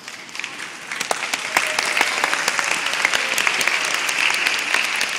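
A congregation applauding, many hands clapping. The applause swells about a second in and then holds steady.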